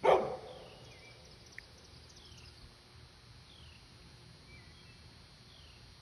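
A dog gives a single loud bark right at the start, which fades within half a second. Behind it, a bird repeats a short downward-sliding call about every second and a half.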